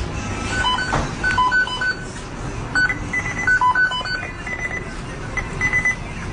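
Series of short electronic beeps at a few different pitches, in quick irregular runs, like phone keypad tones, over a steady background noise.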